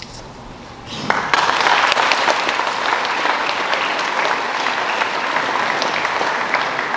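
Large audience applauding, the clapping starting about a second in and then going on steadily.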